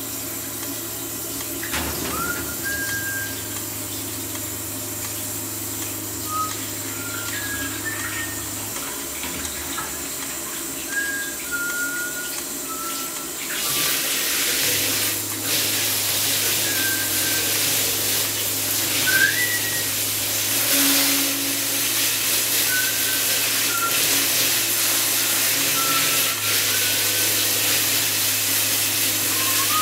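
Someone whistling short, scattered notes over running water. The water gets louder about halfway through.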